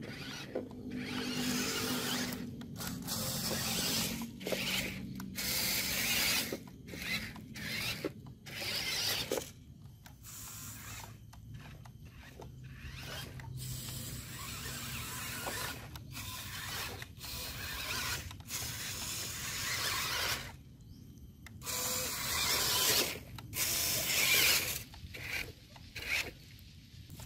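RC scale trucks' electric motors and gearboxes whirring in repeated bursts, starting and stopping every second or two as the trucks drive through mud.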